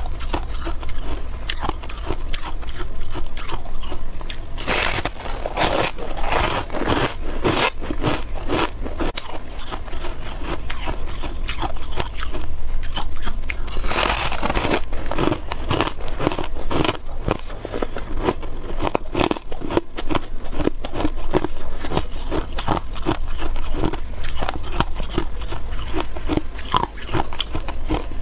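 Freezer frost being bitten and chewed: a dense run of soft, crackly crunching, with louder bites about five seconds in and again about fourteen seconds in.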